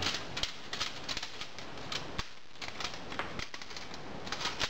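Irregular light clicks and taps of a tape measure being handled and held against a sand muller's steel compactor roller.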